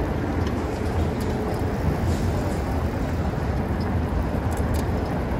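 Steady low wind rumble on a bike-mounted microphone, with road noise, while riding a pedal bike along a paved bike lane.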